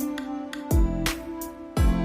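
Gentle background music with a steady beat, a deep percussive hit falling about every second under plucked, pitched notes.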